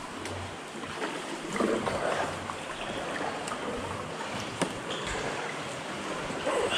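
Kayak paddle strokes dipping and splashing through calm water, with water trickling off the blades, a louder splash a couple of seconds in and another near the end, and a few sharp clicks.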